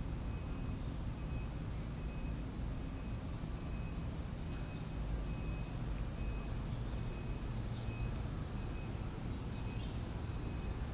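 Steady low outdoor background rumble with no distinct event standing out.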